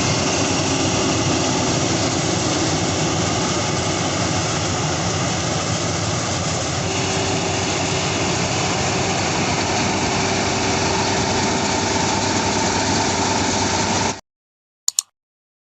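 Rice combine harvester's engine and machinery running steadily, cutting off abruptly about 14 seconds in, followed by a single short click.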